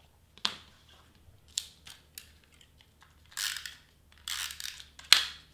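Stiff glitter cardstock and small craft tools being handled: several small clicks and taps, two rustling scrapes of card about three and a half and four and a half seconds in, and a sharp click near the end, the loudest sound.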